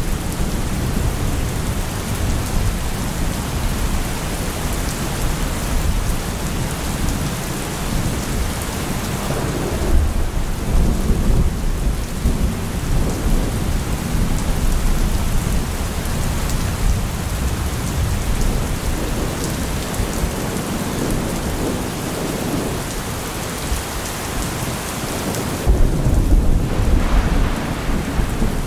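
Rain falling steadily with rolling thunder rumbling low underneath, swelling about ten seconds in and again near the end.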